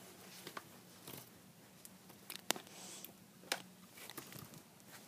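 A few faint, short clicks and light knocks a second or so apart, the sharpest about halfway through, over quiet room noise.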